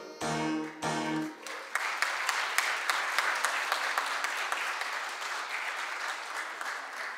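A keyboard plays two closing chords, then a crowd applauds, the clapping fading off near the end.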